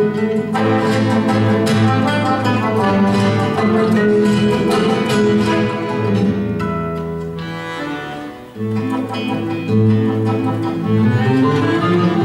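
Accordion and classical guitar playing together, the accordion holding long notes and chords under plucked guitar lines. The music thins and quietens for a moment about eight seconds in, then comes back in full.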